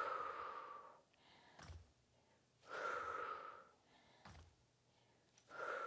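A woman's forceful breaths out through the mouth during an exercise, three breathy exhales of about a second each, with two short soft thumps between them.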